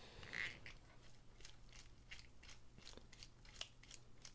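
Faint, irregular clicking and ticking, a few times a second, as a screwdriver bit turns a small screw out of a folding knife's handle.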